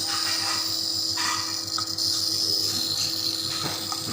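Compressor nebulizer running: a steady hum with a constant high hiss from the mist.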